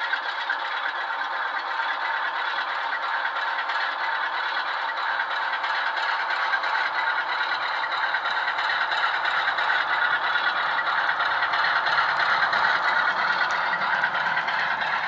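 Sound decoder in a Bachmann OO gauge Class 46 model diesel playing a Class 46 engine sound through a double iPhone speaker: the Sulzer twin-bank diesel running steadily with a rattling beat while the model hauls its coaches. It grows a little louder as the locomotive passes closest, about four fifths of the way in.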